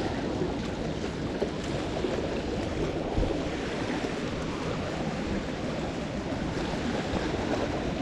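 Steady wash of surf against the jetty's boulders.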